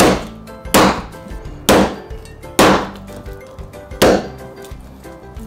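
Chinese cleaver chopping a black sea bream into large pieces on a plastic cutting board: five heavy chops about a second apart, the blade striking through the fish and hitting the board. Background music runs underneath.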